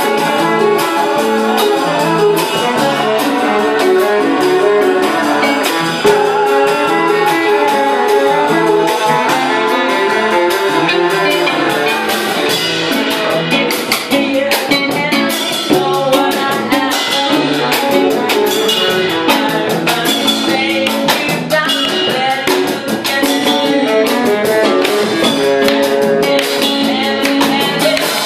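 A small live band playing, with electric guitar, bass guitar and drum kit.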